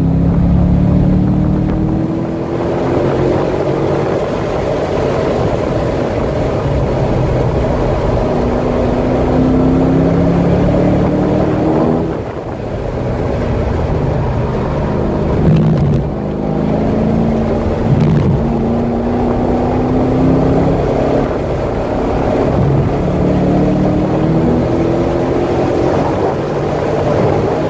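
C6 Corvette's V8 pulling hard on track, its pitch climbing under acceleration several times and dropping back between pulls, over heavy wind and road noise.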